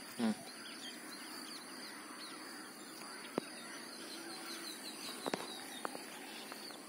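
Faint outdoor ambience with small birds chirping in quick high runs, a short pitched call just after the start, and a few light clicks.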